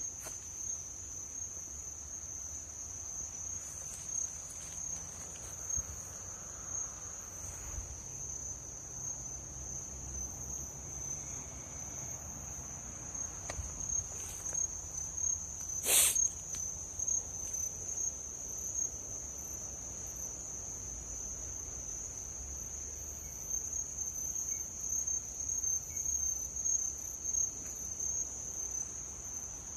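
Steady, unbroken high-pitched trilling of crickets at night, with one sharp click about halfway through.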